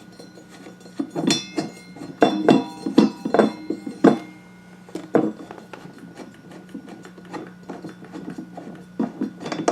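Irregular metallic clinks and knocks with brief ringing as a lawn mower blade's nut and bolt are unscrewed by hand, bunched in the first few seconds and again near the end.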